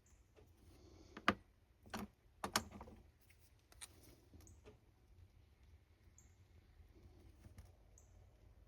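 A few sharp clicks and taps of small hard art supplies being handled and set down on a work surface: three louder clicks in the first three seconds, then fainter scattered ticks.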